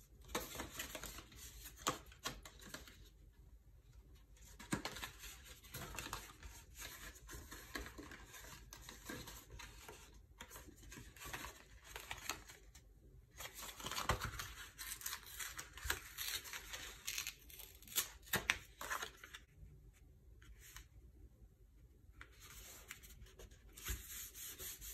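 Folded cardstock and patterned paper being handled and pressed down by hand: light rustling and crackling that comes and goes, with short quiet gaps.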